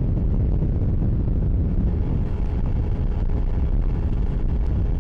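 Wind buffeting the microphone on a bass boat running at speed, a steady low rumble with the motor's drone underneath.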